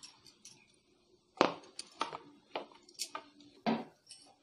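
Plates knocking and clinking against each other and the counter as a cake is turned over from one plate onto a serving plate. There are about five or six sharp knocks, starting about a third of the way in; the first and the last are the loudest.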